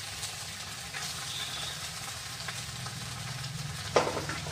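Vegetables frying in a wok with boiled instant noodles tipped in on top, sizzling steadily with a light crackle. One sharp knock near the end.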